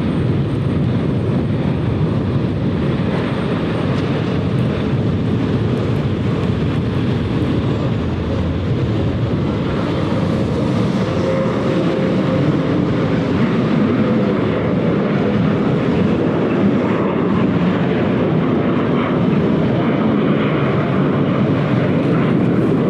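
Jet engines of an American Eagle regional airliner at takeoff power during its departure roll and climb: a steady, continuous rumble that grows a little louder about halfway through.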